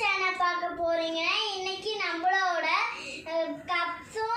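A young girl's voice in a sing-song melody, held notes gliding up and down.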